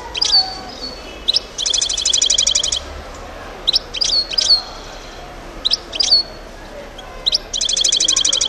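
Caged European goldfinch calling: sharp, short high notes that drop at the end, and twice a rapid buzzy trill lasting about a second.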